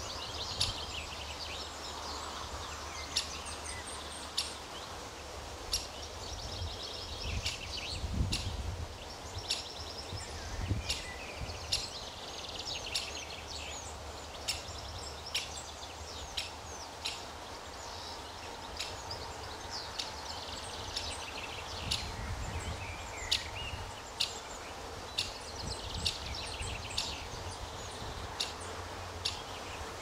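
Great spotted woodpecker chick calling from its nest hole: short, sharp, high calls repeated over and over, begging to be fed.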